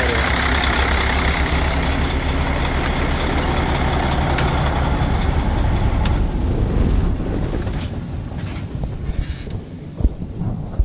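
Mercedes-Benz OM460LA inline-six diesel idling steadily, then dying down about six to eight seconds in as it is shut off, with a single sharp click near the end.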